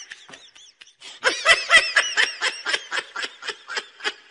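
A person laughing: a faint snicker at first, then a quick run of high-pitched ha-ha laughs from about a second in, stopping just before the end.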